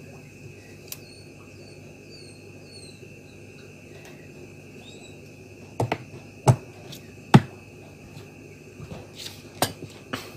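Hard objects knocked and set down on a cutting mat while a large electrolytic capacitor and a digital caliper are handled: a few sharp knocks past the middle, the last the loudest, then lighter taps near the end as the capacitor is stood upright.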